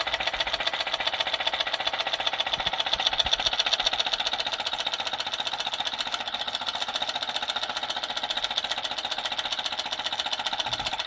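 Small homemade Stirling engine running and spinning a fan propeller, its mechanism making a fast, even clatter at a steady speed.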